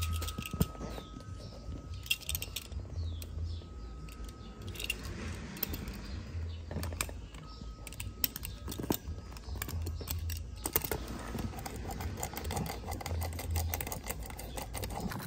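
A wooden-handled hand seam roller pressed and rolled over a glued PVC patch on an inflatable boat tube, with irregular clicks and rubbing of the vinyl as the patch is pressed down to bond.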